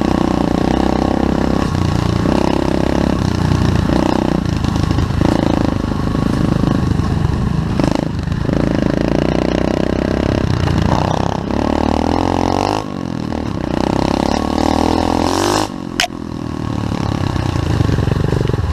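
SSR 125cc pit bike's single-cylinder four-stroke engine ridden hard, pitch rising and falling in repeated surges with short drops as the throttle is rolled off or it shifts. One sharp crack near the end.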